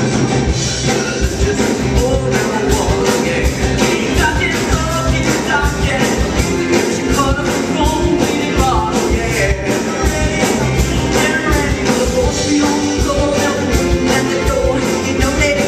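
Live rock-and-roll stage-musical music with a steady, driving drum beat and singing over it.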